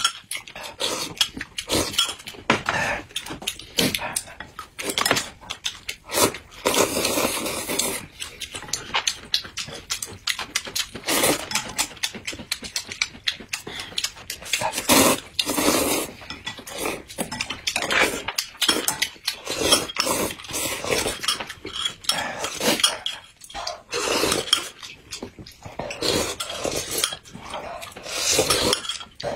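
Two people loudly slurping noodles with chopsticks in long, irregular bursts, with occasional clinks of utensils on bowls, and sipping from glass mugs near the end.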